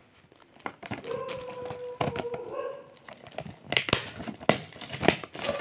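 Shiny gift-wrapping paper crinkling and crackling as it is picked at and pulled open by hand, quiet at first and louder in the second half.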